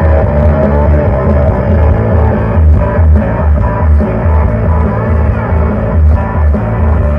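Music with a heavy, pulsing bass line played loud through a JBL subwoofer driven by a homemade 2SC5200 transistor amplifier running on 12 V DC.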